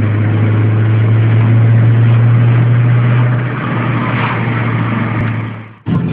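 Car engine and road noise heard from inside the moving car: a steady low drone that eases off about three and a half seconds in. The sound fades and drops out for a moment near the end, then picks up again.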